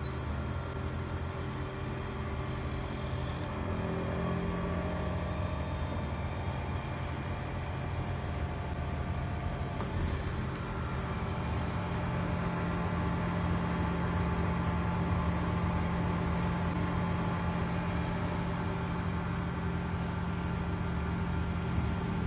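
WDS-580 BGA rework station running: a steady whir of air from its blowers and fans over a low hum. The hum's pitch shifts slightly about three and a half seconds and ten seconds in.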